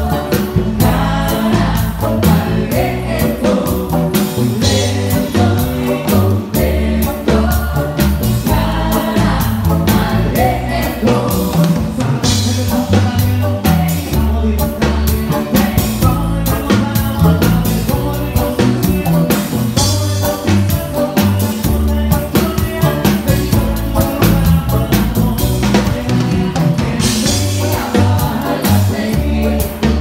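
Live band playing an up-tempo song with singing, keyboards, bass and drums, loud and with a steady beat, heard from the stage.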